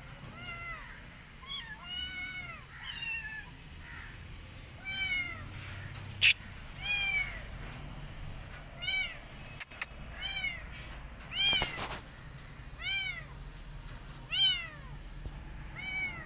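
A kitten meowing over and over, about a dozen short high calls that each rise and fall in pitch: the calls of a kitten trying to get out through a fence. A sharp click about six seconds in is the loudest single sound.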